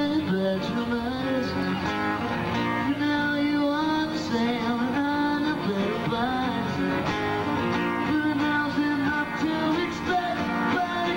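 Live acoustic rock band playing: strummed acoustic guitar with singing over it.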